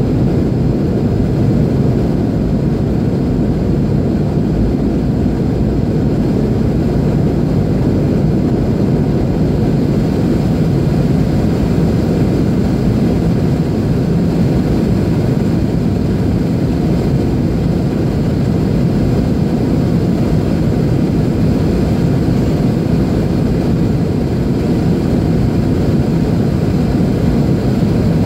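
Airliner cabin noise during descent: a steady low rumble of the engines and rushing air, unchanging throughout.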